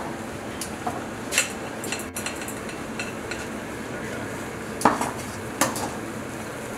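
A noodle basket and a glass bowl clinking against a stainless-steel stockpot of boiling water, four sharp knocks over a steady hiss; the loudest knock falls just before the end.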